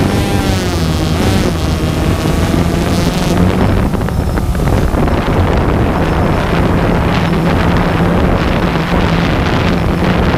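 Steady buzzing hum of a small quadcopter drone's propellers, with wind rushing over the microphone; in the first couple of seconds a higher motor whine wavers up and down.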